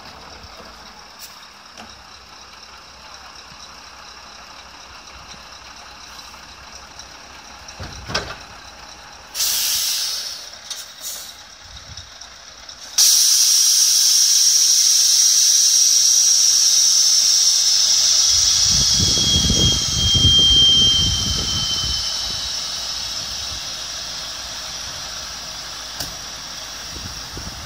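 Compressed air hissing from a Scania 730 heavy-haul truck and lowboy trailer's air system: a few short hisses, then about halfway through a sudden loud, long release that slowly fades, with a brief squeal partway through.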